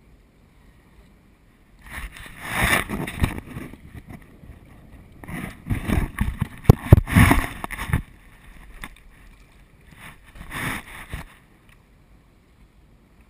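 Three bursts of rubbing and knocking on an action camera's housing as it is handled, the loudest in the middle.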